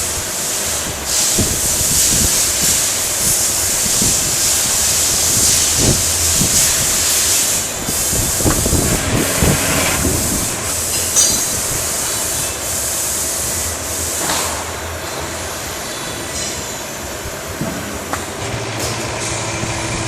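Six-axis CNC glue dispensing machine at work: hissing air that comes and goes every couple of seconds, with scattered clicks and knocks and a faint whine that sweeps up and down in the second half.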